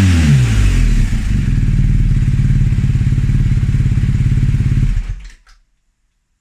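BMW R1250GS Adventure's boxer-twin engine dropping from a rev to a steady idle, then shut off about five seconds in, dying away within half a second.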